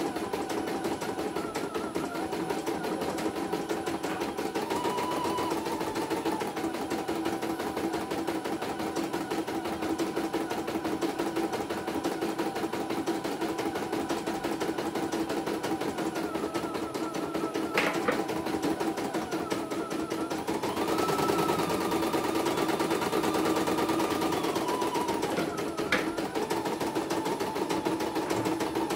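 CNY E900 computerized embroidery machine stitching steadily, with rapid, even needle strokes over the hum of its motor. There are sharp clicks about 18 seconds in and again near 26 seconds, and the machine runs a little louder from about 21 seconds in.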